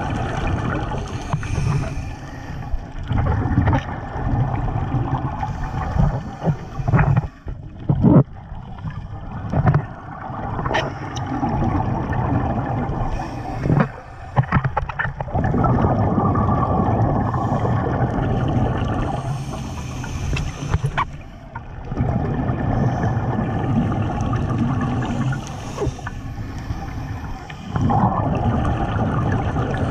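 Scuba regulator breathing heard underwater: rushes of exhaled bubbles, each a few seconds long, with short gaps between breaths. A few sharp clicks in the first half.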